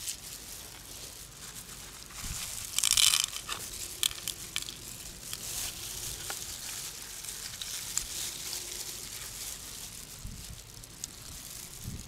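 Thin disposable plastic gloves crinkling and rustling as hands handle pearls and pick through freshwater mussel flesh, with scattered small clicks and one louder crinkling rush about three seconds in.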